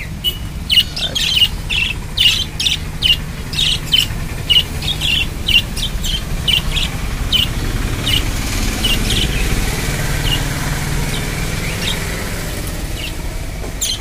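Budgerigars chirping and chattering in short high calls, several a second, thinning out about halfway through, over a low steady rumble.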